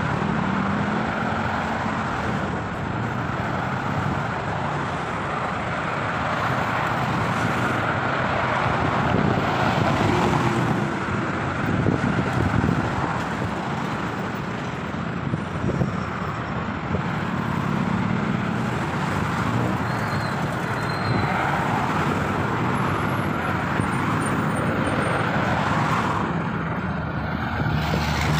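Steady expressway traffic noise: cars, vans and light trucks passing at speed, the tyre and engine noise swelling and easing as vehicles go by.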